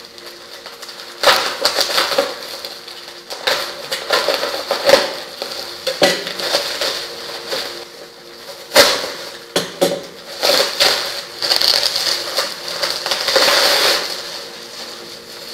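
Bubble wrap crinkling and rustling in irregular bursts as it is handled and pulled open by hand.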